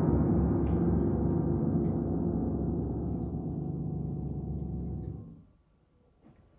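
Final low, bell-like piano chord ringing and fading slowly, then cut off abruptly about five seconds in as it is damped, leaving near silence.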